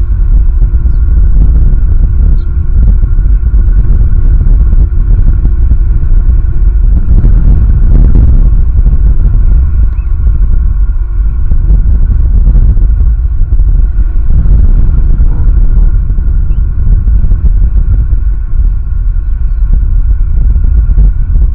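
Wind buffeting the nest camera's microphone: a loud, continuous low rumble that swells in gusts, the strongest about eight seconds in.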